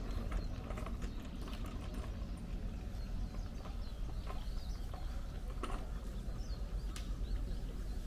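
Footsteps of a person walking: scattered knocks at an uneven pace over a steady low rumble.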